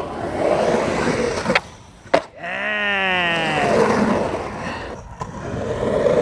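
Skateboard wheels rolling on a concrete bowl wall. The rolling stops about a second and a half in and is followed half a second later by a sharp clack, like the board coming off the wall and landing. A drawn-out tone falling in pitch follows before the rolling picks up again, with one more click near the end.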